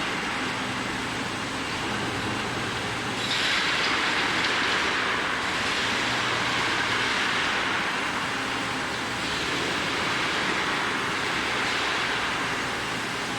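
Steady industrial machinery noise from a steel wire galvanizing line: a low hum under a hiss. The hiss grows louder about three seconds in, then swells and eases.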